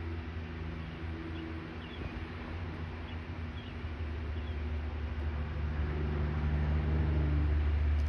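A steady low mechanical drone, like a motor or engine running, that grows louder over the last few seconds. A few faint, short, high chirps come and go in the first half.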